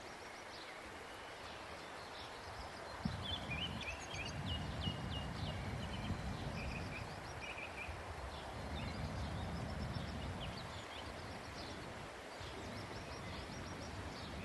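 Faint outdoor ambience: small birds chirping in short, repeated high notes, in two clusters, over a low steady rumble.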